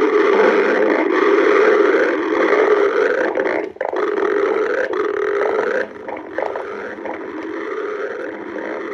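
Stomach growling in long, continuous rumbles, with a short break a little under four seconds in and somewhat quieter from about six seconds on.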